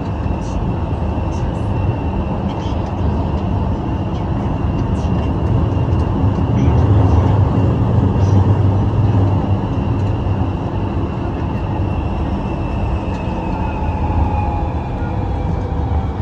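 Siemens-built Guangzhou Metro Line 1 train heard from inside the car: a steady low rumble of the running train with a thin traction-motor whine. From about twelve seconds in, the whine falls in pitch as the train slows.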